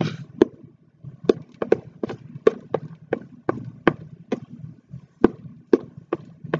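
A plastic spoon knocking against a plastic mixing bowl while a foamy shaving cream slime mixture is stirred: sharp, irregular taps, about two or three a second.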